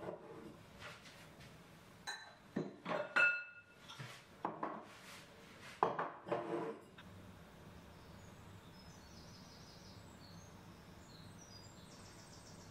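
Crockery and glass jars clinking and knocking as they are set down on a kitchen worktop, one with a brief ring, for about seven seconds. After that a quiet room with faint bird chirps from outside, from about nine seconds in.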